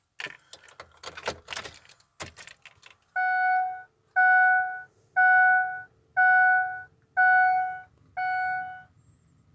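Keys jangling and clicking as the key goes into the ignition of the 2006 Ford F-350 and is turned. About three seconds in, the truck's dash warning chime starts as the ignition comes on: six steady tones, about one per second, all at the same pitch, stopping near the end.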